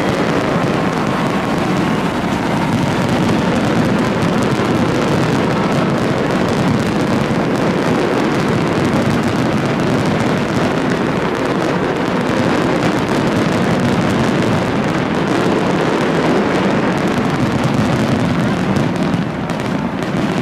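Steady, dense din of a large outdoor crowd, many voices blending together without a break.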